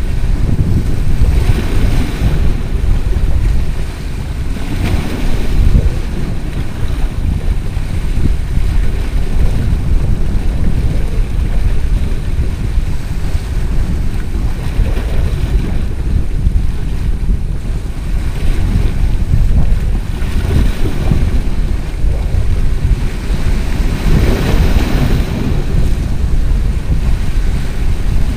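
Wind buffeting the microphone in a steady low rumble, over sea waves washing and splashing against breakwater rocks. The surf swells up several times, every few seconds.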